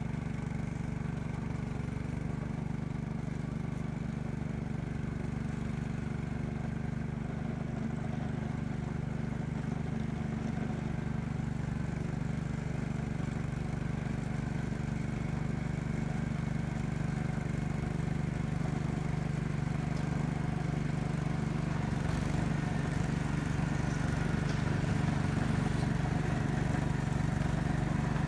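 Gravely L8 tractor engine running steadily under load while working a snowblower attachment. Near the end it grows a little louder, with more hiss.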